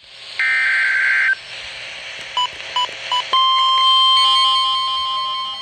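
Emergency Alert System signalling over NOAA Weather Radio. First comes a roughly one-second warbling burst of SAME data header, then three short beeps. About three seconds in, the steady single-pitched weather radio warning alarm tone begins, which announces that a new warning is about to follow.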